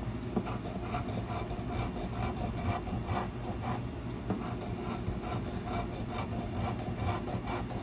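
A large metal coin scraping the coating off a paper scratch-off lottery ticket in quick, repeated strokes, a continuous scratchy rasp.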